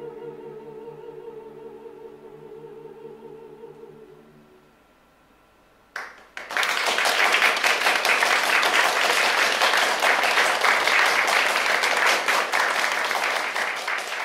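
A vocal quartet of soprano, mezzo-soprano, tenor and bass-baritone holds the final chord of a song with vibrato, fading out over the first few seconds. After a short pause, audience applause starts about six seconds in and carries on, louder than the singing.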